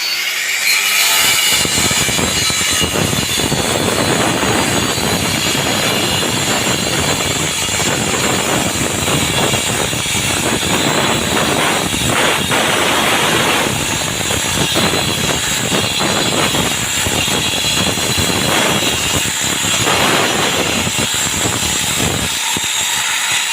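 Concrete-cutting saw running under load through a concrete slab: a loud, steady grinding noise with a high whine held throughout.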